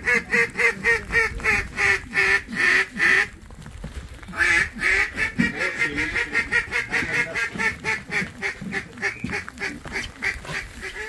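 Duck call blown in rapid, evenly spaced quacks, about four a second, in two long runs with a short break between them: a hunter calling to a flock of ducks as they circle back.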